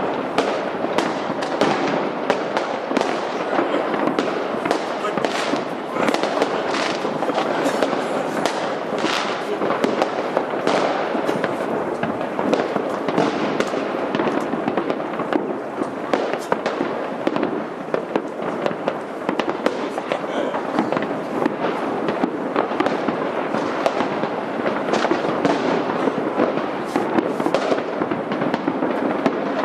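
Fireworks display going off without a break: a dense, continuous crackle of many bangs and pops every second.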